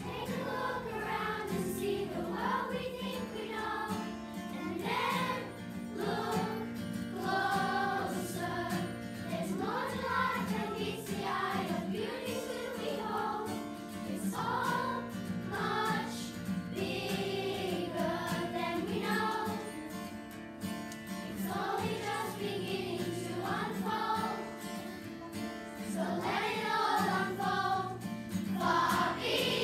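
Children's choir singing together over a steady instrumental accompaniment.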